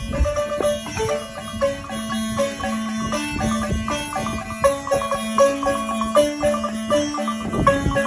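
Instrumental music: quick runs of short struck notes over longer held bass notes, in a steady rhythm.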